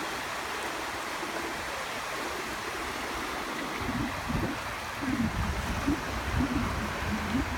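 Small sea waves washing in over a shallow sandy shore, a steady hiss of surf. From about four seconds in, gusts of wind buffet the microphone with an irregular low rumble.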